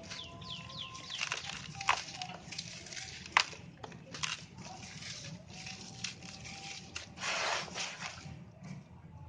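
Dry red sand-cement chunks being crushed and crumbled: crunchy crackling with two sharp cracks in the first few seconds and a longer gritty crumble about seven seconds in.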